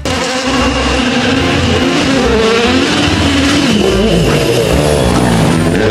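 Hyundai i20 World Rally Car at racing speed, its engine revving loud, the pitch climbing and dropping again and again.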